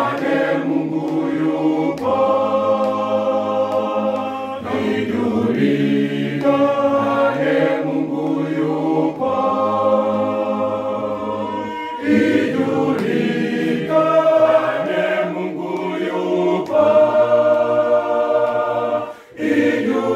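Mixed choir of women and men singing a Swahili gospel song unaccompanied, in held chords, with short breaks between phrases.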